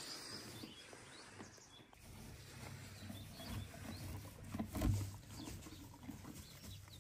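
A horse eating chopped green fodder from a wooden manger: faint, irregular chewing and rustling of the feed, with one dull thump about five seconds in.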